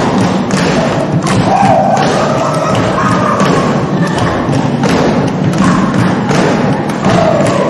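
Stomp-style percussion: repeated thuds on a makeshift drum and the stage, struck about twice a second in a steady rhythm.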